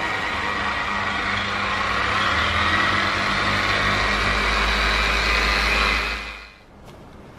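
Makita PO6000C forced-rotation polisher running steadily with its pad working compound on car paint, then switched off about six seconds in.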